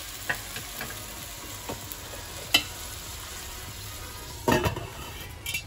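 Rice sizzling steadily as it fries in mustard oil with a little water added, in a stainless steel pan. A few sharp clicks come through, then the stainless steel lid is set on with a clatter about four and a half seconds in.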